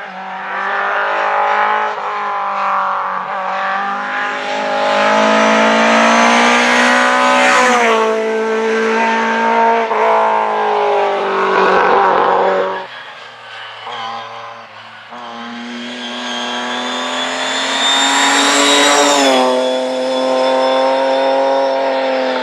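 Rally car engines at hard acceleration, one car after another. The first climbs in pitch, shifts up with a sudden drop about eight seconds in, then falls away. The second climbs again from about fifteen seconds in, with another upshift near nineteen seconds.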